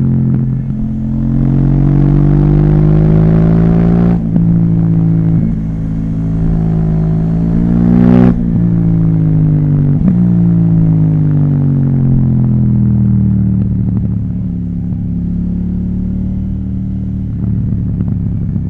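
KTM 790 Duke's parallel-twin engine through an Akrapovic exhaust, ridden hard. The revs climb, drop sharply about eight seconds in, then fall slowly as the bike slows on a closed throttle.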